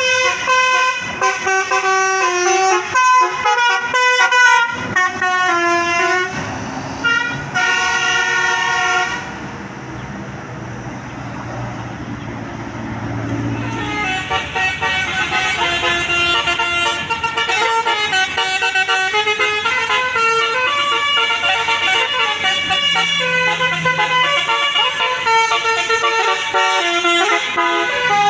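Bus 'telolet basuri' 12-note musical air horn playing a fast melody of stepped notes. It breaks off for about four seconds near the middle, where the low rumble of an engine and traffic is heard, then starts playing again.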